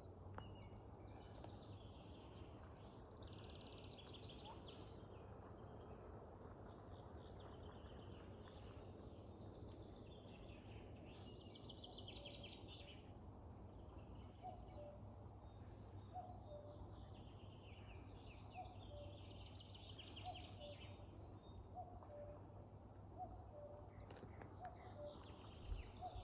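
Faint birdsong: a high, rapid trilled song phrase repeated every several seconds. From about halfway through, a distant bird repeats a low two-note falling call about every second and a half, over a steady low hum.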